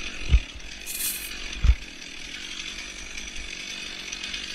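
A petrol chainsaw on fire, which the onlooker puts down to friction: a steady rough noise with two heavy thumps, one about a third of a second in and one about a second and a half in, and a short hiss about a second in.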